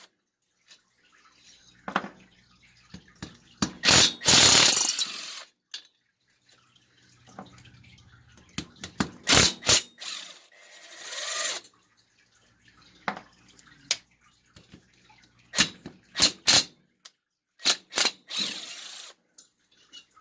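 Hand tools and loose metal parts clinking and knocking against a small engine during teardown, with a few longer noisy bursts of a second or so between the clinks.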